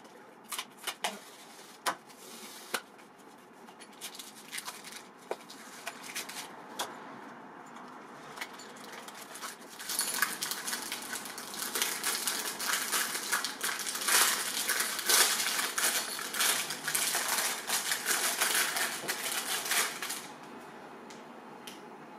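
Scattered taps and clicks of a cardboard box being handled. About ten seconds in, a long stretch of crinkling plastic wrap as a camera adapter ring is unwrapped. The crinkling is the loudest part and stops a couple of seconds before the end.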